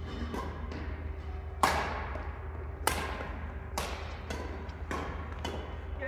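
Badminton rackets striking a shuttlecock in a rally, about eight sharp hits in quick succession, the loudest about a second and a half in.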